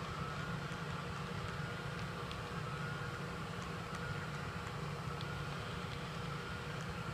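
Steady drone of a model train running: the recorded EMD diesel engine sound from the Tsunami sound decoders in three model Canadian National GP38-2 wide-cab locomotives, mixed with the rolling of model covered hoppers on the track. An occasional faint click is heard.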